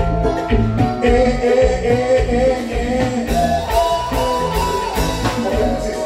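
Live band music: drum kit keeping a steady beat, bass and electric guitar, with a woman singing lead.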